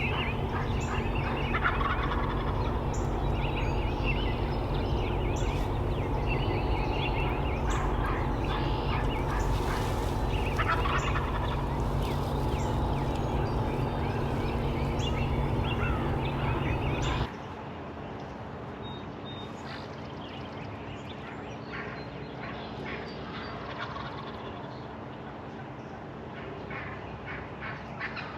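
Wild turkey toms gobbling again and again, the rattling gobbles coming in bursts throughout. A steady low rumble underneath cuts off abruptly about two-thirds of the way through.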